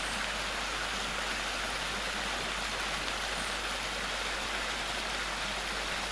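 Shallow stream water running over a flat bedrock slab and spilling down a small rocky cascade: a steady, even hiss of water.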